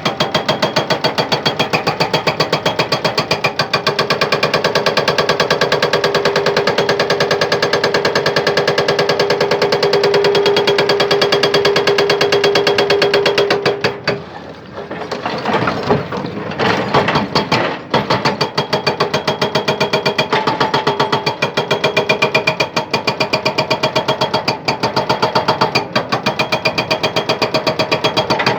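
Excavator-mounted hydraulic breaker hammering hard rock in a rapid, steady run of blows. About halfway through it stops for a few seconds with a few short bursts, then resumes steadily.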